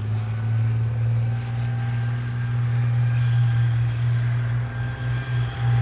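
A tracked main battle tank's engine drones steadily at a low, even pitch as the tank drives across a dirt arena. A steady high whine from its running gear joins about a second in.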